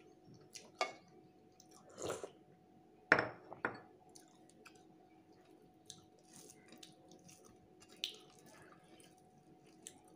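Eating by hand: fingers mixing and mashing rice with fish curry on a plate, and chewing, heard as a few short wet smacks and clicks, the loudest about three seconds in, over a faint steady hum.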